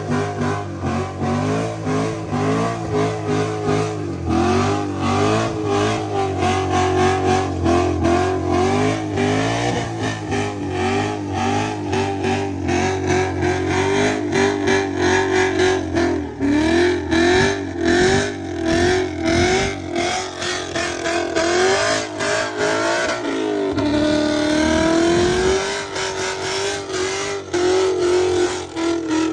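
Car engine revved hard up and down, again and again, as in burnouts. About 24 seconds in the revs drop away and then climb back up.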